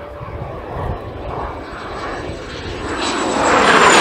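Soko G-2 Galeb's Rolls-Royce Viper turbojet as the jet flies past: a thin high whine over jet noise that grows much louder in the last second or so as it comes close, the whine dropping slightly in pitch near the end.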